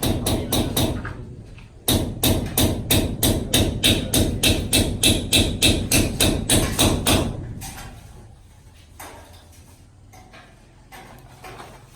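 Rapid, steady hammering, about four blows a second, in a short run that stops about a second in and a longer run from about two seconds in to past seven seconds, then only scattered quieter knocks.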